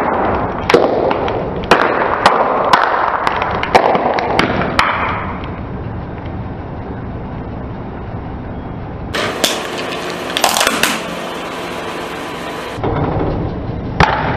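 Car tyre rolling over a row of small plastic-wrapped packets of coloured goo, bursting them one after another with sharp pops and crackling over the first five seconds, and more crackling bursts a few seconds later. Just before the end, one sharp crack as the tyre meets a plastic tub.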